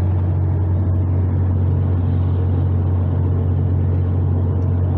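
Steady low drone of a road vehicle's engine and tyres heard from inside the cabin while driving at a constant pace.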